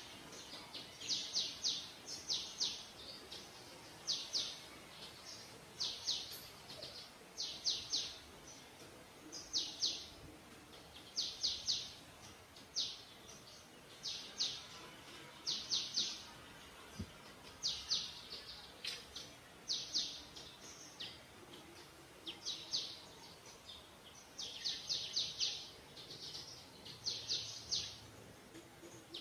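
A bird calling over and over: short bursts of three to five quick, high, slightly falling chirps, repeated about every two seconds.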